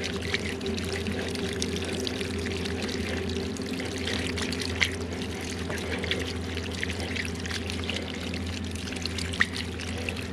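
Water pouring and trickling out of a cut water line as the last of the water in the pipe drains out, with a steady low hum underneath.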